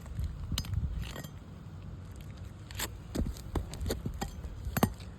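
Scattered sharp clicks and scrapes of hand tools prying at nails in asphalt roof shingles, the loudest knock near the end, over a low rumble.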